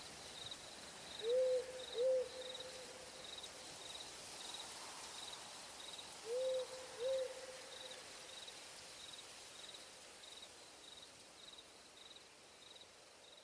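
Two pairs of low hooting calls, about five seconds apart, each hoot briefly rising and falling in pitch and leaving a lingering tone. Faint high chirping repeats about twice a second throughout, over a soft hiss that slowly fades.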